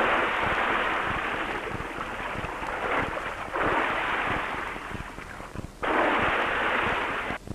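Sea waves breaking and washing over a rocky shore: rushing surf in three surges, the last cut off abruptly near the end. It sounds muffled, with no high end, like an old film soundtrack.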